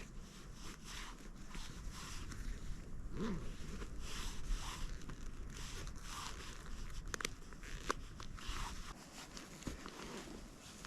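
Nordic skate blades striding and gliding on thin new lake ice, about 45 mm thick: a steady run of scraping strokes, roughly one a second, with a few sharp clicks from the ice about two-thirds of the way in.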